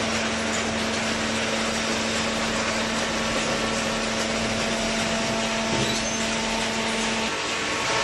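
Hydraulic baler machinery running: a steady mechanical hiss with a constant hum, the hum dropping out about seven seconds in.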